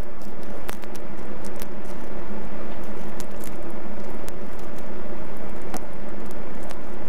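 Salt sprinkled by hand onto raw salmon pieces in a metal baking tray: scattered light ticks and pattering, over a steady background hum.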